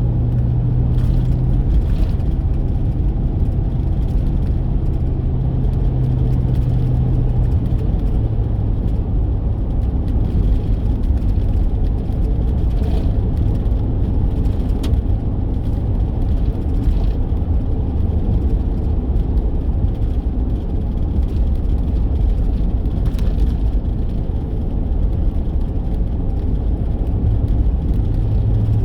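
Car driving, heard from inside the cabin: steady engine hum and road rumble, the engine note dropping slightly about eight seconds in.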